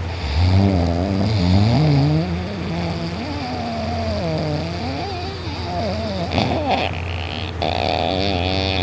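A sleeper's heavy, snoring breaths, drawn out into wavering tones that slide up and down in pitch, with a short rough burst about six and a half seconds in. A steady low hum runs underneath.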